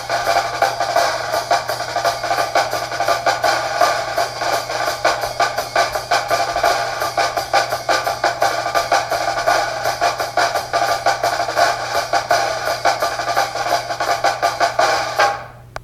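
Ringtone music with a fast, steady drum beat, which cuts off suddenly near the end.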